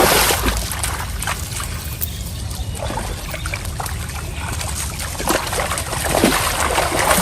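Water trickling and splashing, with scattered small splashes.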